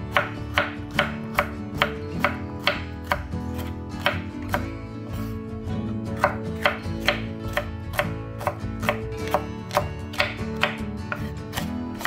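Kitchen knife slicing a red bell pepper into strips on a wooden cutting board. Each cut ends in a sharp knock of the blade on the board, at an even pace of about two to three cuts a second.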